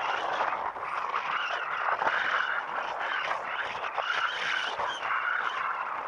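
Steady road and traffic noise heard while riding along a city street, a continuous rushing hiss that rises and falls without letting up.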